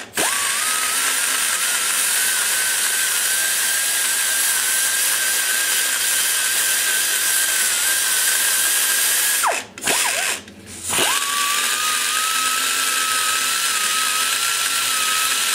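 Die grinder running an aluminum-cutting burr into a cylinder head's exhaust port, a steady high whine with hiss that shifts slightly in pitch as it bites. It spins up right at the start, and about nine and a half seconds in it slows and cuts out twice before spinning back up.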